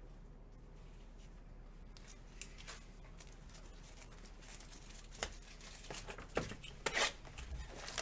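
Trading cards and packaging being handled: faint rustling and crinkling with light clicks and scrapes, starting about two seconds in and getting busier and louder in the second half.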